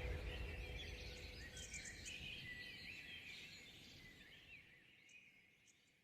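Birds chirping over a low rumble, the whole sound fading steadily and dying away to near silence near the end.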